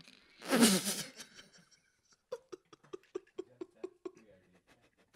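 Laughter: a loud burst about half a second in, then a run of short pulsing laughs, about five a second, between two and four seconds in.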